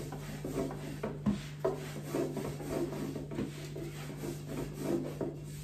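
A long thin wooden rolling pin (oklava) rolling and rubbing over gözleme dough on a large round board, in repeated back-and-forth strokes, two or three a second.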